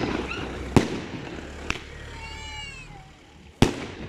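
Aerial firework shells bursting overhead: three sharp bangs, the last and loudest near the end. Between the bangs a high, wavering wail rises and falls.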